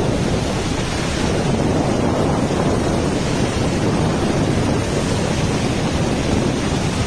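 Steady, heavy rush of water pouring through a dam's crest gate that was left open when its chain link broke, with wind buffeting the microphone.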